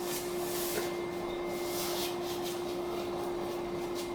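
Hands rubbing and pressing masking tape down around a paper-covered cardboard ceiling patch: a series of soft brushing swishes, over a steady hum.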